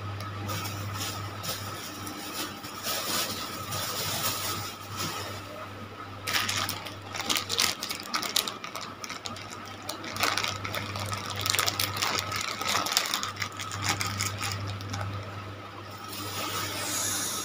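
Clear plastic snack bags crinkling and rustling in the hands as egg-fried macaroni and cilor are squeezed out onto a plate, in many short crackly bursts, over a steady low hum.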